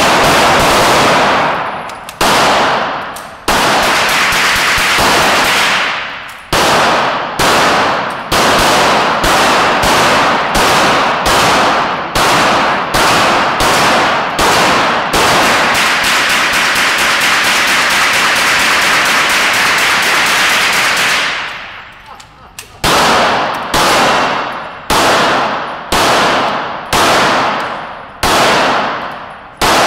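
A rifle and pistols firing rapidly together, echoing in an indoor shooting range: a near-continuous volley for about twenty seconds, a brief pause, then single shots about one a second.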